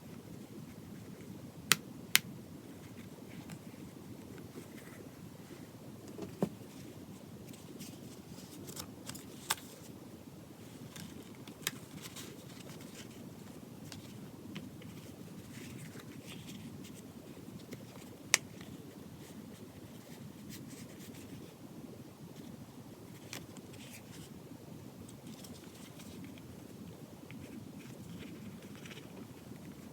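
Handling of a small leather notebook cover and its paper and card inserts: a handful of sharp clicks and taps, the loudest two about two seconds in, over a steady low room hum.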